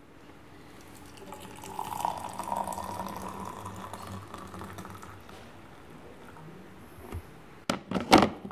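Milk poured from a jug into a glass, a filling stream for a few seconds that tails off. Near the end, a few sharp knocks as the jug is set back down on its base.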